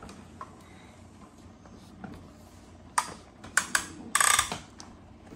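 Plastic Play-Doh shape cutters clicking and clattering as they are handled. Sharp clicks come about three seconds in, then a louder rattle about a second later and one more click near the end.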